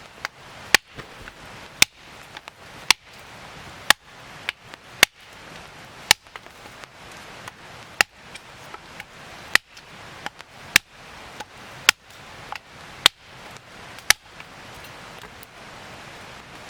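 Firewood being chopped with a blade: sharp, hard strikes of steel into wood at a steady pace of about one a second, some fourteen in all.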